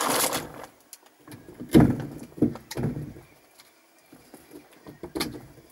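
Thick black electrical cable being handled and moved, with a few short rustling knocks and rubs.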